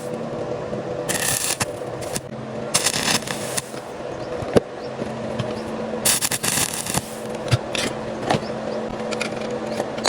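Arc welding: the arc crackles in several short bursts over a steady low hum.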